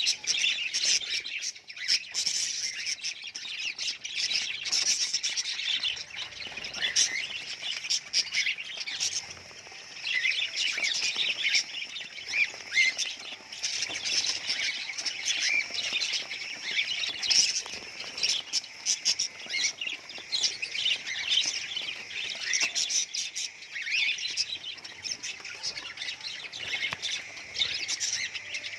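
A flock of budgerigars chirping and chattering continuously, many short overlapping calls at once.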